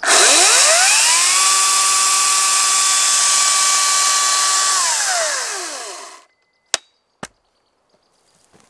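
Ryobi 40V HP brushless cordless chainsaw spinning its chain with no load. The motor rises in pitch to a steady high whine and holds for about three and a half seconds, then winds down and stops once the trigger is let go. Two sharp clicks follow.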